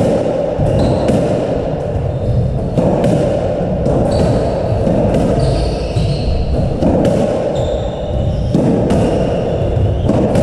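Squash rally: the ball cracking off rackets and the walls about every second and a half, with short high squeaks of court shoes on the wooden floor in between.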